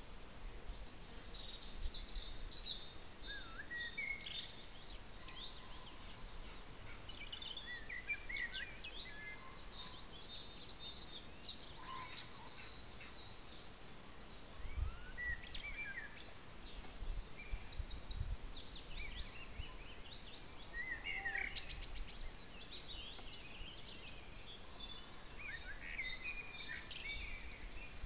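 Wild birds singing and calling, a busy run of short chirps, trills and quick sliding notes, with a few low rumbles in between.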